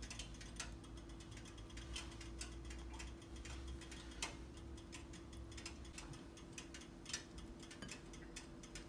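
Faint kitchen background: a steady low hum with scattered light clicks and taps from handling food and dishes, about one every half second to second, at no even beat.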